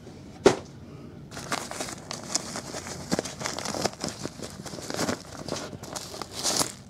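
Crinkling and rustling of the clear plastic wrap around a baseball and its velvet drawstring bag as they are handled, in a run of uneven crinkles. A sharp knock about half a second in is the loudest sound.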